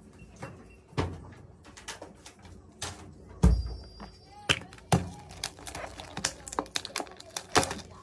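Objects handled and put down on a wooden tabletop: a series of knocks and light taps from a plastic cup and packaging. The loudest is a dull thump about three and a half seconds in.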